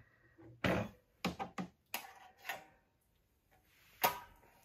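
A hooked steel wire tool clicking and scraping against the snowmobile's muffler retaining springs as they are pried at, a series of short metal clicks and knocks with two louder ones, about a second in and near the end.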